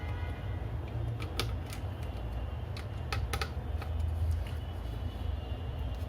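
Small sharp clicks and taps of laptop parts being handled and fitted, one about a second and a half in and a quick cluster of three a little past the middle, over a steady low hum.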